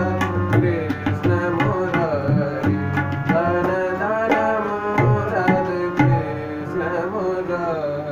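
Hindustani classical music in Raag Bhairav: tabla strokes keeping rhythm under a melodic line that glides between notes.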